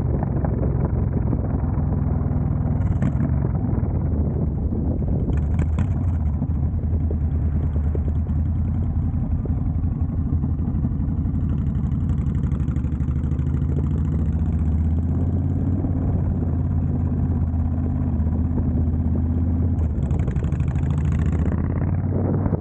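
Honda Fury's V-twin running through a Cobra Speedster Swept exhaust while the bike is ridden at low speed, the engine note shifting a little with the throttle.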